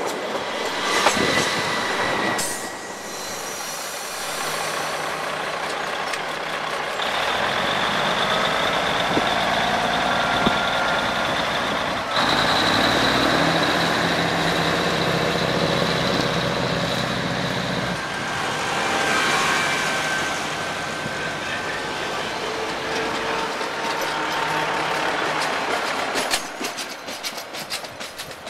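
Auckland diesel multiple-unit train: wheel clicks from a train moving past at first, then the steady running of its diesel engines, louder for several seconds mid-way, with rapid wheel clicks returning near the end as a train moves along the platform.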